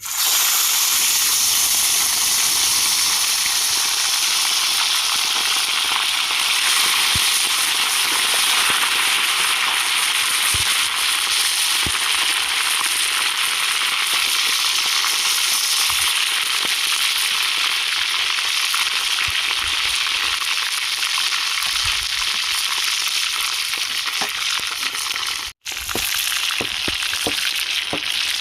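Food frying in hot oil: a loud, steady sizzle with fine crackling, broken once by a brief drop-out near the end.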